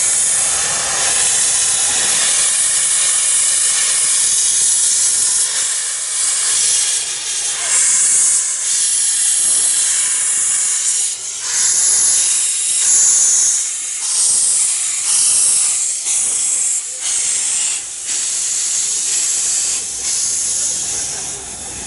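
Narrow-gauge steam locomotive letting off steam: a loud, steady hiss for about five seconds, then breaking into uneven bursts of hiss.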